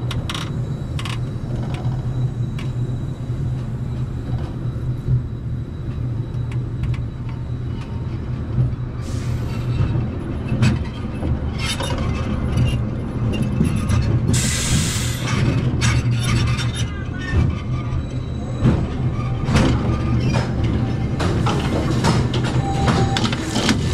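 Wooden roller coaster train rolling slowly along the brake run, with a steady low rumble from the wheels and scattered clanks and rattles from the track and car. A short hiss comes about halfway through.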